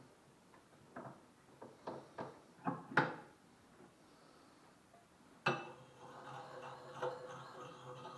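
Six or so short knocks and clatters of hard objects being handled, then a sharp click about five and a half seconds in, followed by a steady hum.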